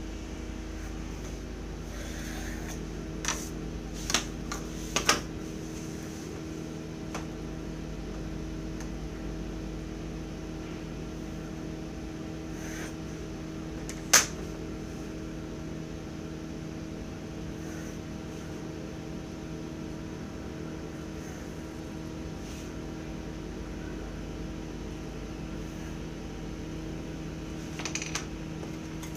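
A steady machine hum, with a few light knocks of drafting tools on the table in the first seconds and one sharp click about halfway through as a metal set square is put down on the drawing board.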